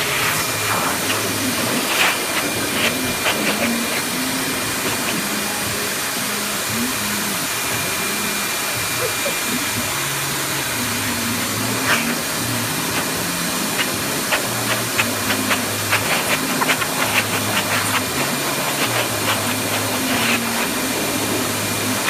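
Hand-held hair dryer blowing steadily, with scattered short clicks and taps that come more often in the second half.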